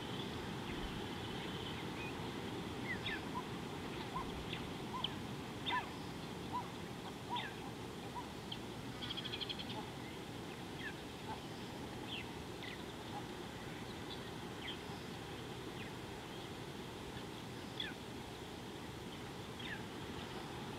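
Wild birds calling: scattered short chirps and falling whistled notes, most of them in the first half, with a quick trill about nine seconds in, over a steady low outdoor hiss.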